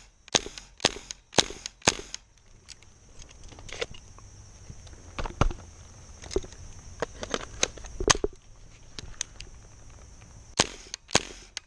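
Airsoft gun shots from a Tippmann M4 HPA rifle, fired one at a time: about two a second at first, then at uneven gaps.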